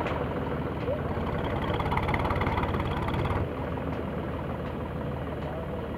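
An engine running steadily with an even low pulsing, dropping in level about three and a half seconds in.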